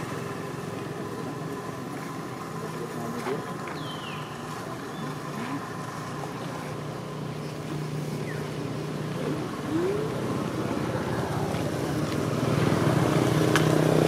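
A motor engine running steadily, getting louder about two seconds before the end, with a couple of faint short chirps over it.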